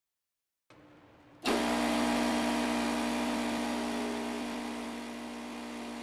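Craftsman air compressor motor and pump starting abruptly about a second and a half in and then running steadily, a steady hum over a hiss that eases a little in loudness, as it pumps up the tank: the freshly replaced pressure switch has closed and the compressor works again.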